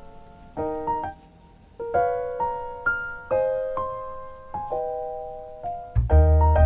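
Background piano music: notes and chords struck one after another and left to ring, with a loud deep bass chord coming in near the end.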